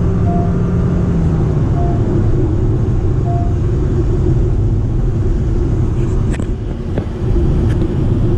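Steady rumble of road, tyre and powertrain noise inside a Honda City e:HEV hybrid sedan cruising at highway speed. Three short faint tones sound about a second and a half apart in the first four seconds.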